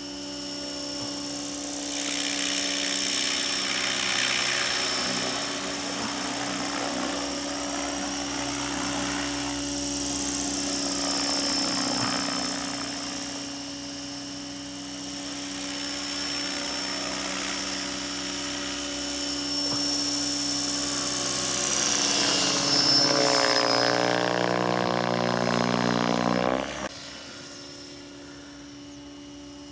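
Align T-Rex 600 RC helicopter flying inverted: a steady rotor and drivetrain whine that swells and fades as it moves about. Near the end the pitch climbs, then the sound drops abruptly quieter.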